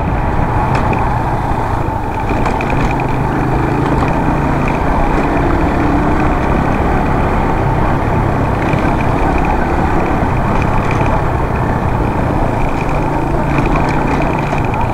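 Suzuki GS150 motorcycle's single-cylinder four-stroke engine running steadily at cruising speed, heard under wind and road noise on the rider's microphone.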